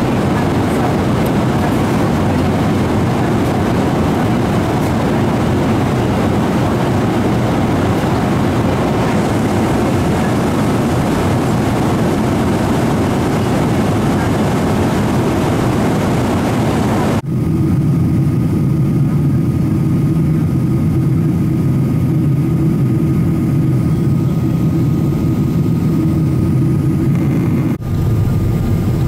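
Boeing 777-300ER's GE90 jet engines and rushing air making a loud, steady roar. It cuts abruptly about two-thirds of the way in to a lower, steadier drone with a faint high whine, and cuts again near the end.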